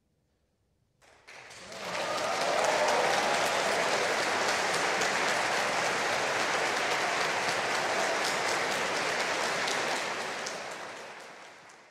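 Audience applause in a concert hall after an opera aria: about a second of silence after the last note, then clapping breaks out, holds steady, and fades away near the end.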